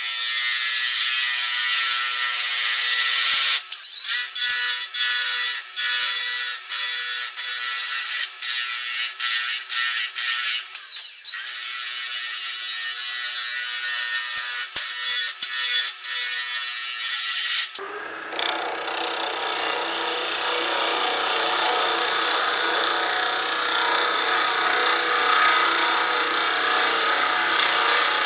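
A gouge cutting a spinning elm-burl and resin blank on a wood lathe: a hissing scrape that stops and starts again and again as the tool touches the work, the gouge dulling fast on the hard resin. About two-thirds of the way in the sound changes to a steadier, fuller rubbing.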